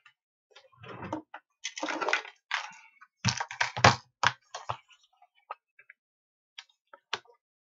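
Handling noise on a tabletop: rustling and scraping, then a quick run of hard plastic clicks and knocks about three seconds in as a clear plastic screwdriver-bit case is picked up, followed by a few faint clicks.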